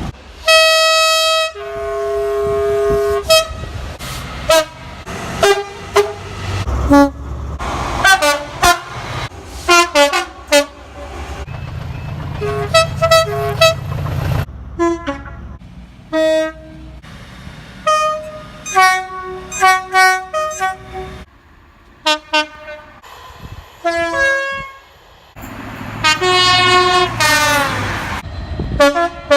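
British train horns sounding one after another, many short blasts, often two-tone high-low pairs, from a mix of diesel and electric locomotives and multiple units. Each clip cuts sharply into the next, with a low train rumble under some of them.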